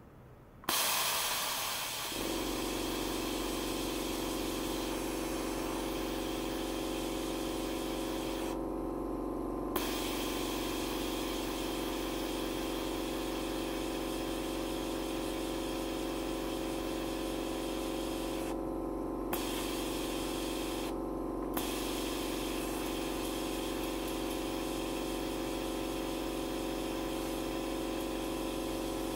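Stainless steel pipe driven by an attached ultrasonic probe with combined sound and ultrasonic signals, giving a steady hum of several tones with a hiss above it. It switches on about a second in, and the lower hum joins a second later. The hiss drops out briefly three times, each gap ending with a small click.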